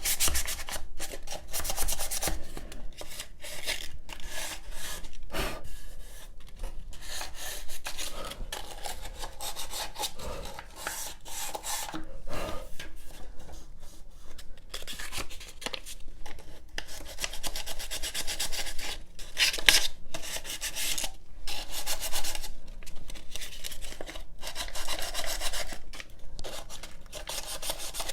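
Wood being hand-sanded with sandpaper wrapped around a flat block: repeated back-and-forth rubbing strokes, some pauses between runs.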